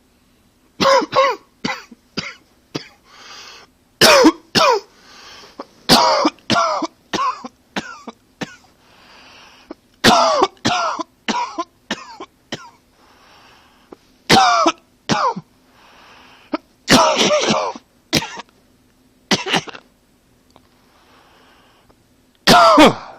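A man coughing hard in about eight fits of several quick coughs each, with breaths drawn in between the fits.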